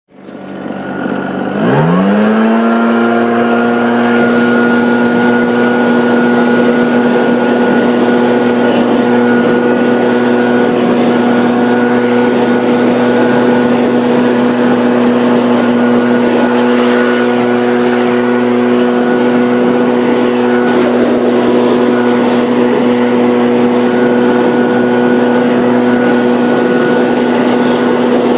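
Small gasoline engine of lawn-care equipment revving up over about two seconds, then running loud and steady at one high pitch.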